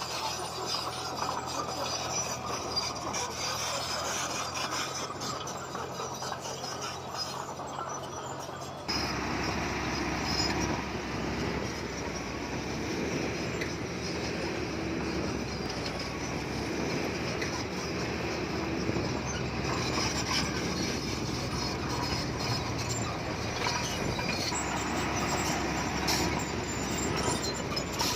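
Komatsu D20P crawler bulldozer working: diesel engine running under load with the clatter of its steel tracks. The sound changes abruptly and gets louder about nine seconds in.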